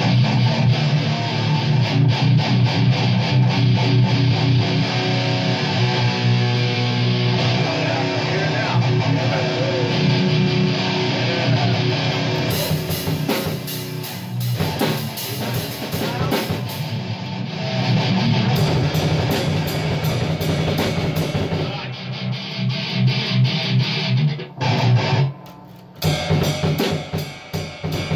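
A death metal band playing electric guitars and a drum kit together. Near the end the playing drops out for about a second, then the drums and guitars come back in.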